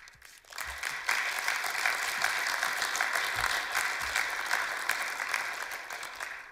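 Audience applauding. The clapping builds up about half a second in, holds steady, and fades away near the end.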